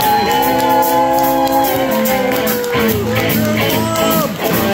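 Live rock band playing: an electric guitar holds one long sustained note that bends down about two and a half seconds in, then plays short bent notes near the end, over bass and drums.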